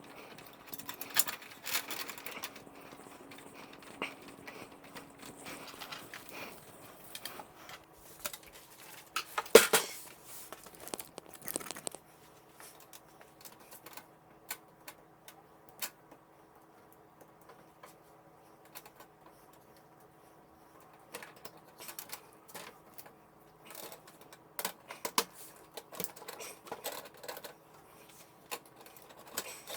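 Hands working on computer parts: irregular clicks, taps and light rattles of plastic and metal, with one sharp knock a little over nine seconds in and a quieter stretch in the middle.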